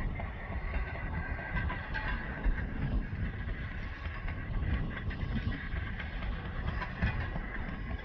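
Rail motorcar approaching along the track, its engine and wheels on the rails heard as a steady, rumbling run.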